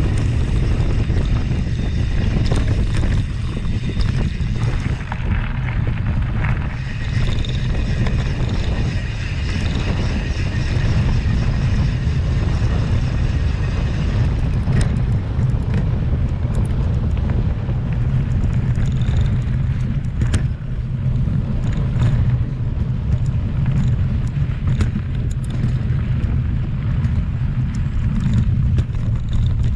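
Mountain bike being ridden over a trail, with a steady low wind rumble on the microphone and scattered clicks and rattles from the bike over rough ground, more of them in the second half.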